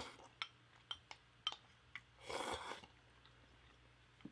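Close-miked eating sounds: a few sharp, wet mouth clicks of chewing a mouthful of spicy seafood noodles (jjamppong), and a short breathy slurp about two seconds in.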